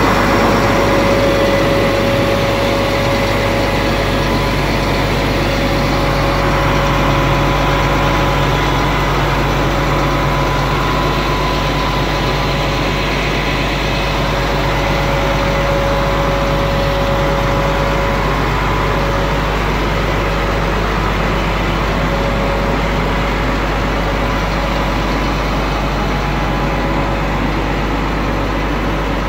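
Flatbed tow truck's engine idling steadily, with a faint steady whine over it.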